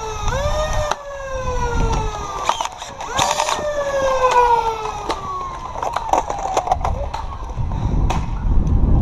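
A siren wailing: each cycle rises quickly and then slides slowly down in pitch, twice in a row, with scattered sharp clicks and knocks over it.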